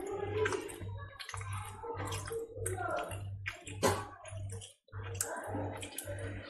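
Syrup-soaked jalebi being pulled and broken apart by hand: a quick run of sticky crackles and small clicks.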